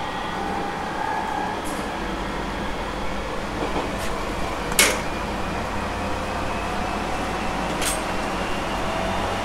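Running noise of an Aoimori Railway 701 series electric train heard from the cab end of the car, a steady rumble with faint tones. The rumble deepens about two seconds in. Several sharp clicks come through, the loudest about five seconds in.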